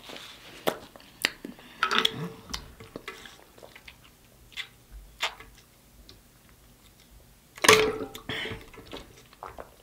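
Close-miked mouth sounds: scattered lip smacks and wet clicks while chewing, then sips and swallows of water drunk from a bottle, with a louder one near the end.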